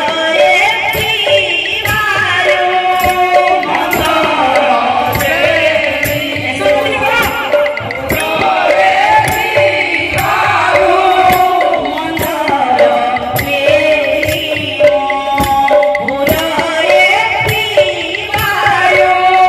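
Live kirtan devotional music from western Odisha. A woman sings into a microphone over drums beaten in a steady rhythm, with regular bright cymbal-like strikes and a held melody tone underneath.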